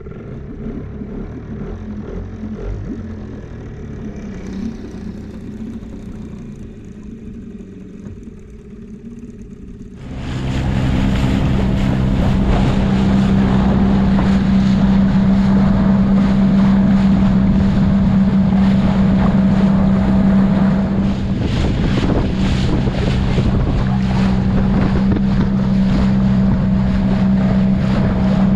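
Small boat's outboard motor running steadily, quieter at first and then suddenly much louder from about ten seconds in, when the boat is under way with wind buffeting the microphone and water rushing past the hull.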